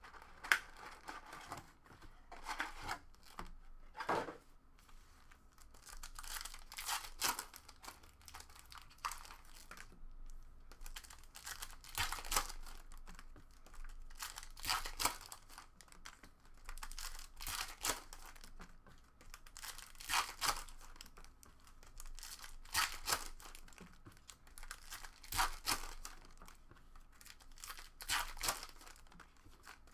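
Foil trading-card packs being torn open and crinkled by hand, in short tearing bursts every two to three seconds with quieter rustling between.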